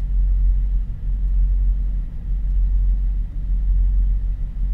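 Semi-truck diesel engine idling, a low steady rumble heard from inside the cab.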